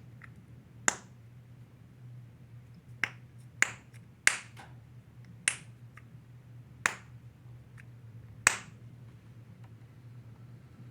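A snapper fidget toy being snapped, about seven sharp single snaps at uneven intervals of one to two seconds.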